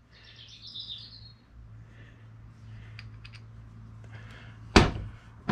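Gears and steel case of a Mini Spares cross-pin differential clicking as they are worked by hand to centre a gear, with one sharp metallic clink near the end and another right at the end. A steady low hum runs underneath, and faint high chirps sound in the first second or so.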